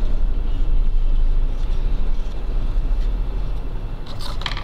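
Steady low background rumble, with a brief rustling scrape about four seconds in.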